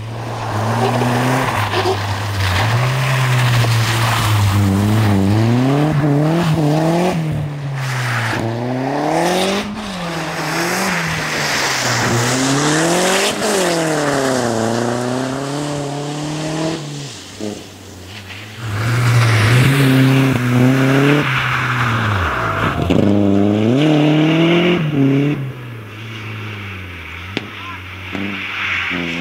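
Audi A4 quattro rally car driven hard on a snowy, muddy stage, its engine revving up and dropping back over and over through gear changes and lifts. It passes close by, pushes hard again about twenty seconds in, then fades into the distance.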